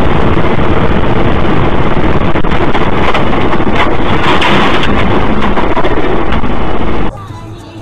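Loud, distorted road and wind noise from a dashcam in a moving car. It stops abruptly about seven seconds in.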